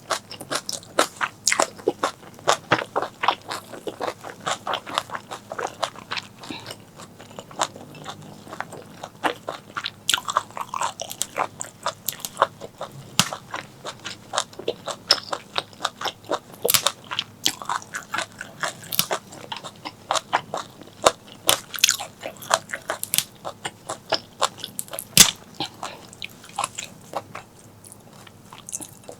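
Close-miked mouth eating sounds: chewing with many irregular wet clicks and crunches, as of duck intestine curry and stir-fried morning glory being eaten.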